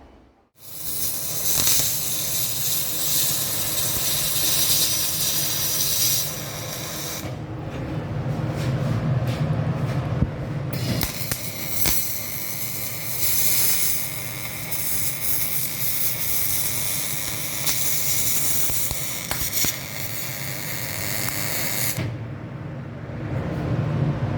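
Gas-shielded arc welding: the arc sizzles with a steady hiss that starts abruptly about half a second in, its bright upper hiss dimming for a few seconds about a third of the way through and again near the end.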